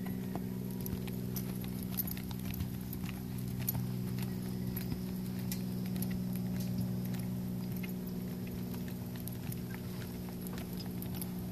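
A Quarter Horse's hoofbeats on soft arena dirt as it lopes, irregular and faint, under a steady low hum.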